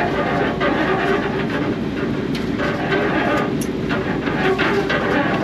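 Fishing boat's engine running under a steady clatter and knocking of prawn traps and groundline being paid out over the side while gear is set.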